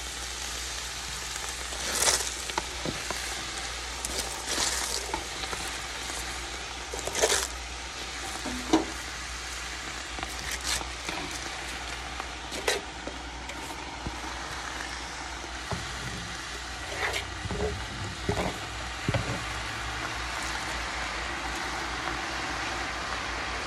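Sliced onions frying in oil, a steady sizzle, as handfuls of shredded cabbage are dropped into the pot, with scattered short rustles and knocks as the leaves land.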